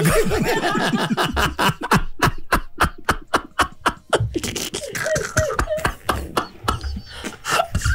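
Hearty laughter: a run of short breathy pulses about five a second, loosening into scattered chuckles in the second half.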